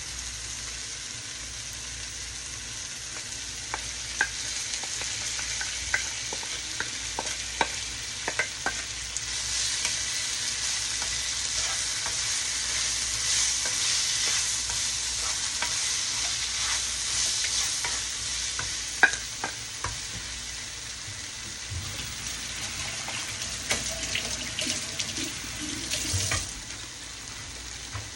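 Food sizzling in a hot pan, a steady hiss that grows louder about ten seconds in and eases off near the end, with scattered sharp clicks.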